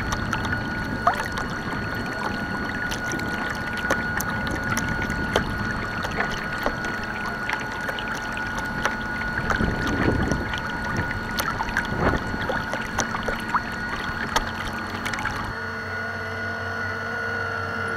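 Choppy water lapping and splashing against a small model boat's hull close to the microphone, in many small slaps with a larger surge about halfway through, under a steady high whine. The background changes abruptly a couple of seconds before the end.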